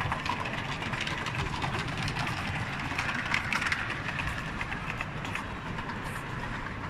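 Model trains running on an exhibition layout, a steady whirr with many small clicks, over the general noise of a large hall.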